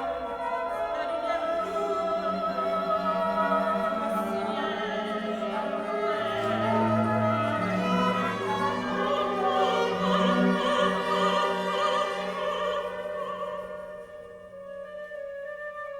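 Background music: a classical piece with an orchestra and an operatic singing voice, swelling in the middle and thinning out near the end.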